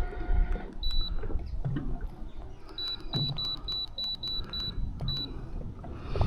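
Short, high-pitched electronic beeps: one about a second in, then a run of about eight at roughly three a second, and one more after, over a low rumble.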